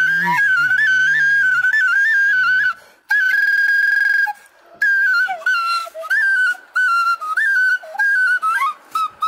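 A small end-blown flute playing an ornamented folk melody, with quick grace notes and trills. One long held high note comes about three seconds in, and the phrases break up near the end.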